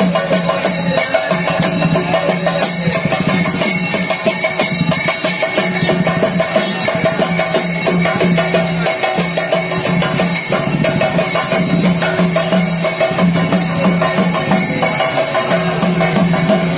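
Traditional Kerala temple-festival music: drums and jingling metal percussion keep a dense, fast rhythm over a steady droning tone.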